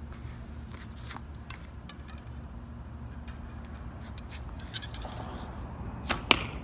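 Xpectre 55-pound takedown survival bow shot near the end: a sharp snap of the string as the arrow is released. Before it, a few light clicks as an arrow is picked up and nocked, over a steady low hum.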